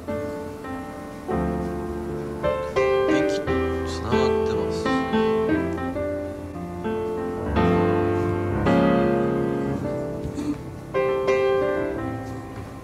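Background music led by piano, playing chords and melody notes that change every second or so.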